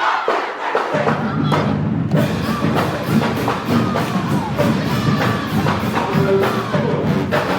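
Crowd cheering, then loud dance music with a heavy bass and steady beat kicks in about a second in.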